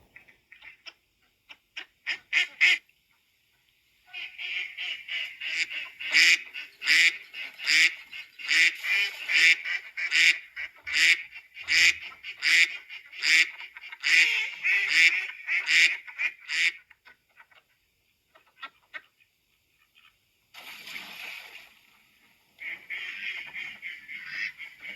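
A flock of domestic geese and ducks calling, with loud honks repeating about once a second over steady chatter. The calling stops for a few seconds about two-thirds of the way through, then picks up again.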